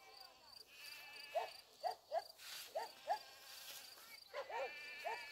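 Crickets chirping in a steady, quick pulse, with a softer trill coming and going, and short pitched calls repeating several times over it.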